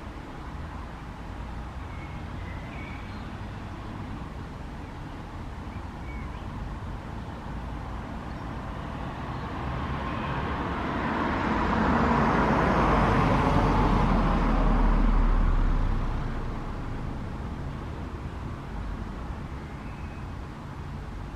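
A road vehicle drives past: its tyre and engine noise swells over several seconds, peaks with a deep rumble about two thirds of the way through, then fades away. A steady low rumble continues underneath.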